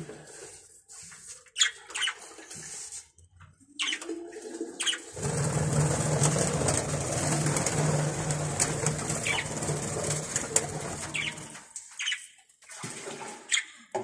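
Budgerigars giving short, sharp chirps. About five seconds in, a loud, dense rush of wing noise lasting some six seconds as the birds fly about the cage, with chirps over it; near the end, short chirps again.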